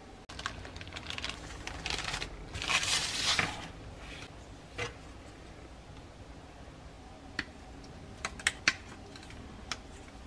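A chrome-plated plastic model-kit sprue being handled: rustling and clattering for the first few seconds, loudest just before the middle, then a handful of separate sharp clicks of fingers and fingernails on the plastic.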